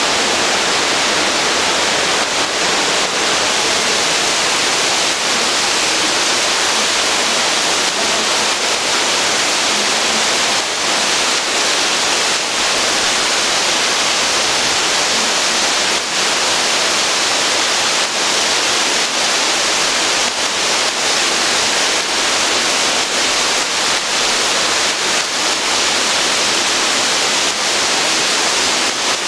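Steady rush of water from a stream or cascade running through the cave, an even, unbroken noise.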